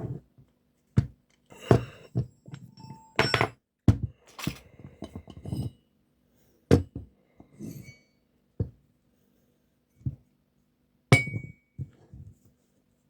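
Irregular metallic clicks, clinks and knocks from a lock and lockpicking tools being handled, just after the lock has been opened. A sharper knock with a short ring comes about 11 seconds in.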